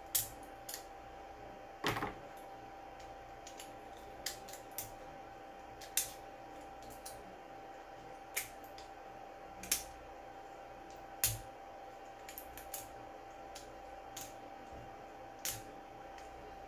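Sharp plastic clicks and snips at irregular intervals, about a dozen, as flush cutters and pliers trim a freshly 3D-printed plastic bearing ring, over a faint steady hum.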